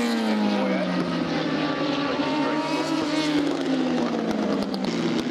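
A historic single-seater racing car's engine running on track, its note falling in pitch in the first second, then climbing and dropping again as it works through a corner.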